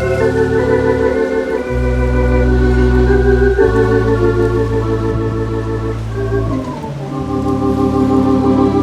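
Organ playing sustained chords over deep pedal bass notes that change every second or two.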